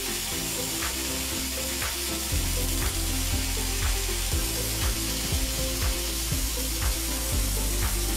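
MIG welding arc of a Hong Ky MIG 200 PRO inverter welder running a bead at about 130–145 A and 21 V with CO2 shielding gas: a steady, even frying crackle, the sign of a stable short-circuit arc. Background music with a beat about once a second plays underneath.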